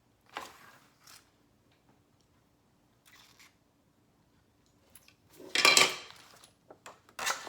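Hands handling items: a few short rustles and scrapes, the loudest a half-second scrape about five and a half seconds in and another just before the end.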